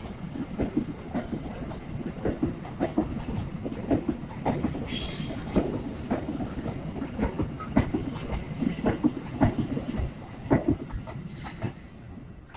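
Passenger train coaches rolling past, their wheels clattering over rail joints with many sharp clicks, and high-pitched wheel squeal in three stretches.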